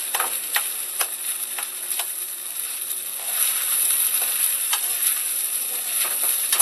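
Kimchi fried rice frying in margarine in a deep pan, sizzling steadily, while a spatula stirs it with repeated scraping knocks against the pan about twice a second.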